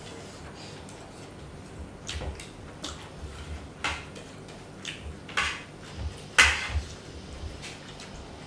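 Eating sounds at a shared meal: about half a dozen short scrapes and clicks of food and utensils on plates and of mouths chewing, the loudest about six and a half seconds in. A faint steady low hum runs underneath.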